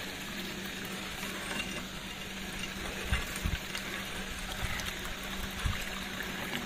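Hand wash-boring of a shallow well: a steady hum from the small submersible pump in the water pit pumping water down the drill rods, with water noise and a few low knocks as the rods are turned by the T-handle. The rods are sinking on their own through loose sand.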